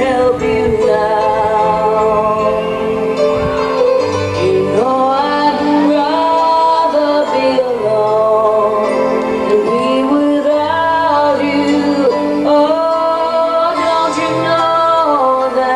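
Live band playing a slow ballad, with long, wavering sung notes held over the accompaniment.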